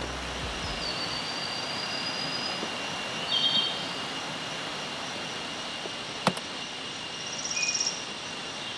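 Night forest ambience: a steady high insect drone over an even hiss, with a few short chirps and trills from insects, and a single sharp click a little past the middle.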